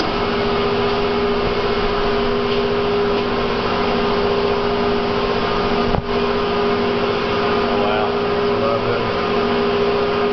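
Ribbon mixer running, its drive giving a steady mechanical hum with two held tones, one low and one a little higher, as the ribbon agitator turns powder in the trough.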